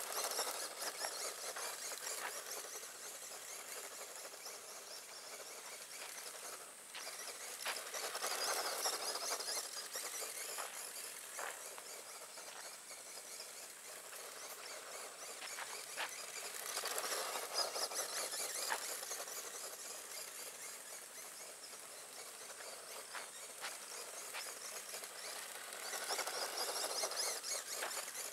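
Tamiya Grasshopper electric RC buggy running laps over loose gravel, its motor and tyres on the grit swelling each time it passes close, about every nine seconds, with a few small stone clicks.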